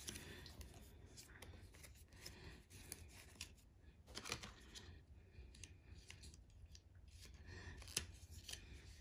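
Faint, scattered light taps and rustles of a paper booklet envelope and card packaging inserts being handled and set down.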